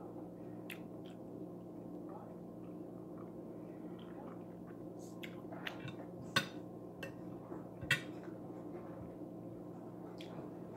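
Someone eating a meal by hand at a table: a few short sharp clicks and taps, the two loudest about six and eight seconds in, over a steady low hum.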